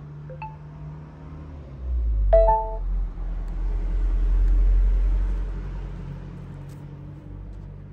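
A Bluetooth amplifier module (XY-P40W) plays a short chime through a small speaker as the phone pairs and connects. The chime comes about two seconds in and is followed by a low rumble that swells and fades.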